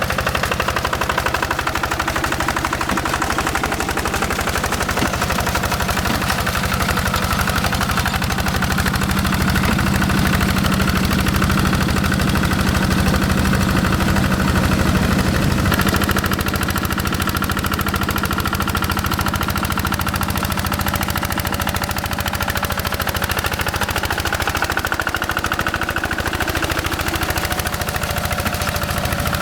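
Single-cylinder Yanmar diesel of a Quick G1000 hand tractor running steadily with rapid, even exhaust pulses. Its note changes about halfway through.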